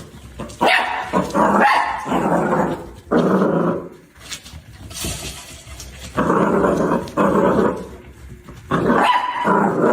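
A dog barking and growling in a series of rough calls, each lasting about a second, with short pauses between them.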